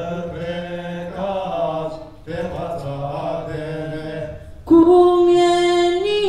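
Unaccompanied group of men's voices singing a line of an Albanian patriotic song together. About four and a half seconds in, a single higher voice comes in loud with the next line, call and response.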